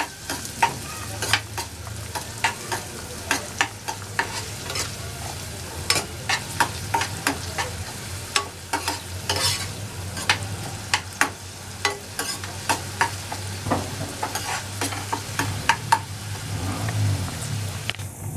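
Chopped onion frying in oil in a pan, sizzling steadily, while a spatula stirs it and knocks and scrapes against the pan every second or so.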